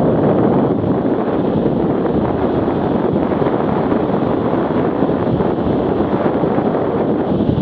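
Steady, loud wind rush buffeting the microphone of a camera riding on a fast-moving Arctic Cat 650 H1 ATV, with the quad's running noise mixed in.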